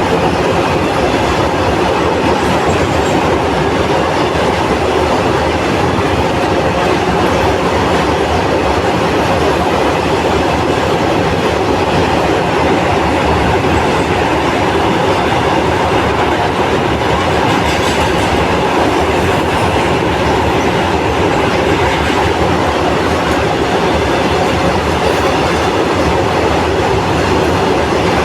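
A moving train's wheels running on the rails: a loud, steady rumble that holds unchanged throughout.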